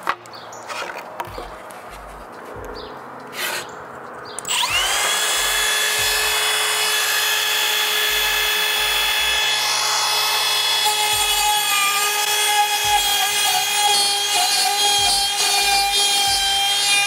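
Milwaukee cordless compact router starting up about four and a half seconds in, its motor whine rising quickly and then running at a steady high pitch as the bit cuts vent slots into crown moulding.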